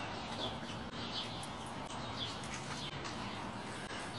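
Short high chirps repeating about once a second over a steady outdoor hiss.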